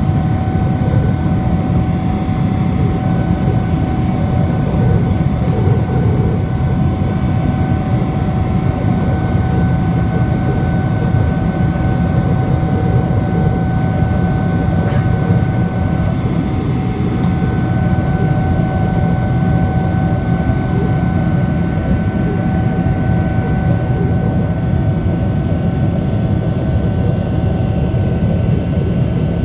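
Cabin noise of a Boeing 777-300ER climbing after takeoff, heard from a window seat beside the wing: the GE90-115B turbofans at climb power and the rushing air make a steady, loud rumble, with a steady engine whine on top.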